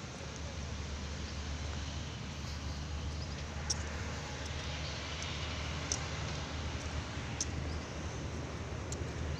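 Steady outdoor background noise with a low hum, broken by a few faint short clicks.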